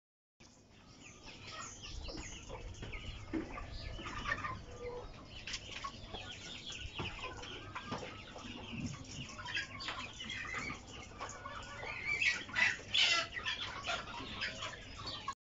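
A large flock of tiger chickens clucking and calling over one another, with scattered small knocks and scuffles, and a run of louder, higher calls near the end.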